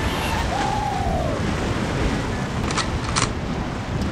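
Wind buffeting the microphone over sea surf washing against the rocks, with a short falling tone about half a second in and two sharp clicks close together near three seconds.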